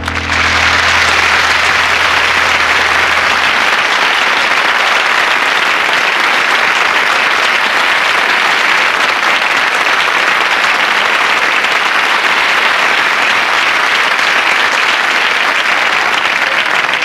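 Studio audience applauding loudly and steadily, with the last low piano note dying away beneath it in the first few seconds.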